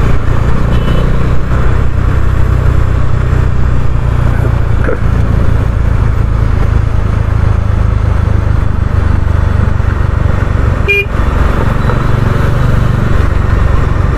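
Bajaj Dominar 400's single-cylinder engine running steadily as the motorcycle rides at city speed through traffic. A vehicle horn toots briefly about a second in and again about three-quarters of the way through.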